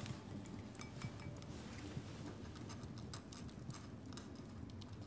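Faint, irregular light clicks and ticks over a low, steady rumble.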